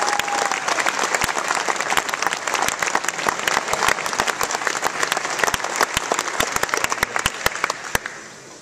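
Large audience applauding, a dense patter of many hands clapping that dies away near the end.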